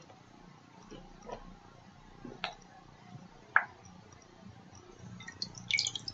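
Water in a metal bowl with a face held under it: a few faint, separate drips, then a cluster of splashing and dripping as the face comes up out of the water near the end.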